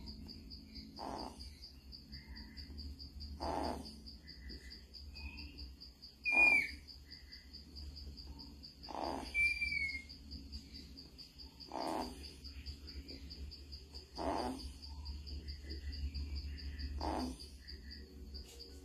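Night ambience of a steady high-pitched insect trill, with a frog calling about every two to three seconds and a couple of short gliding chirps.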